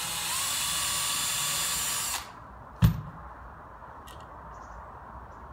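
Cordless drill spinning a 2.5 mm bit into softwood, boring a pilot hole for a hinge screw so the wood won't split. It runs steadily for about two seconds and stops suddenly. About a second later comes a single sharp clunk as the drill is set down on the bench.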